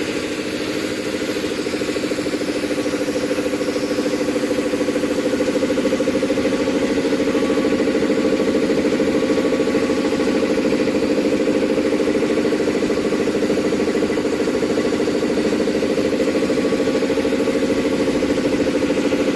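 Air compressor head running steadily under test, with a rapid, even pulsing from its piston strokes. It builds slightly over the first few seconds, then holds steady.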